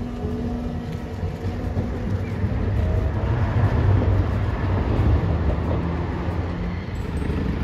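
Hiroden 800-series tram pulling away from the stop: a steady low rumble of its motors and wheels on the rails, mixed with road traffic, loudest midway.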